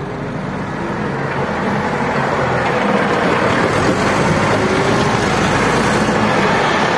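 Caterpillar 950B wheel loader's six-cylinder diesel engine running, growing louder over the first three seconds and then holding steady.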